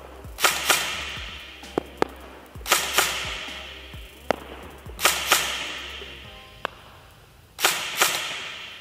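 Electric airsoft rifle (an MK18 Mod 1 AEG with a V2 gearbox) firing pairs of shots about every two and a half seconds. Each crack rings out in a long echo, and fainter sharp ticks come between the pairs.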